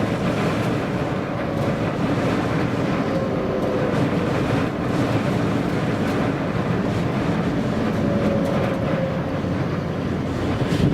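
Vehicle driving in a strong gale: a steady rumble of engine and road noise with faint tones that slowly slide in pitch, mixed with wind buffeting.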